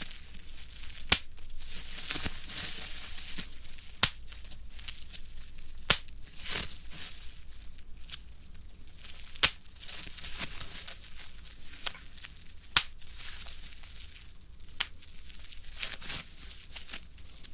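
Bubble wrap crinkling as it is squeezed in the hands, with sharp pops as single bubbles burst, the loudest about five coming a few seconds apart and smaller ones between.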